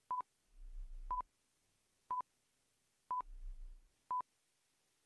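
Countdown timer beeping five times, one short high beep each second, as the count runs from five to one.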